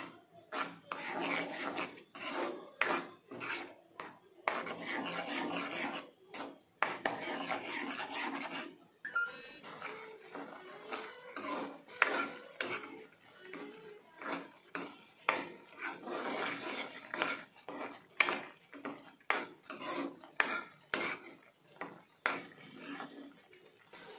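Steel spoon stirring and scraping a thick, grainy kalakand mixture of milk and milk powder around a non-stick pan, in repeated rasping strokes about one or two a second, with the odd sharp clink of spoon on pan.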